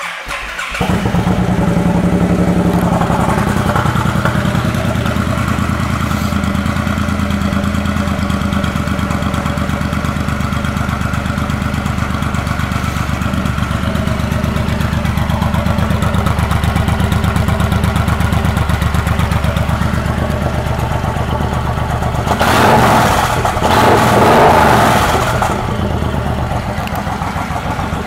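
Suzuki M109R Boulevard's 1783 cc V-twin, fitted with aftermarket exhaust pipes, starting up within the first second and then idling steadily. It gets louder for a few seconds about three quarters of the way through, as if briefly revved.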